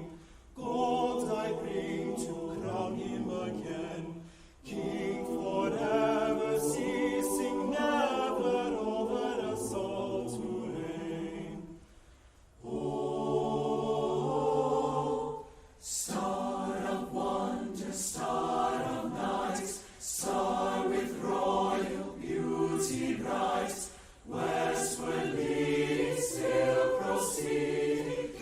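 A choir singing in sustained phrases, with short breaks between phrases.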